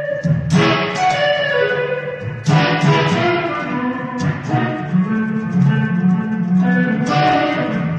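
Electric guitar being played: ringing chords struck a few times, about two seconds apart, with held single notes between them.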